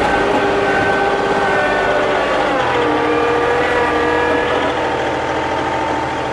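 John Deere 2038R compact tractor's three-cylinder diesel running under load while clearing snow. About halfway through, its pitch drops and it settles at a lower, steady speed.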